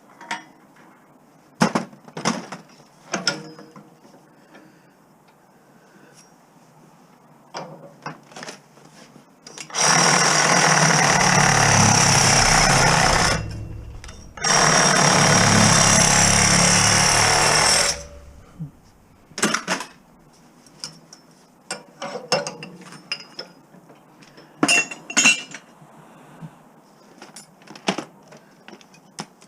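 A power tool run twice, each time for about three seconds with a short pause between, amid clinks and knocks of metal parts being handled.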